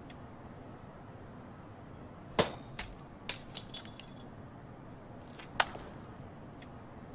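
Sharp, hard clicks of a small ball striking table tennis paddles. There is a loud click about two and a half seconds in, a quick run of lighter clicks a second later, and another loud click near six seconds.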